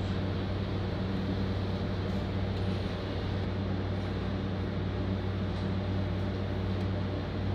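Steady running noise inside a diesel railcar: a constant low engine hum with wheel and rail noise as the train runs at an even speed.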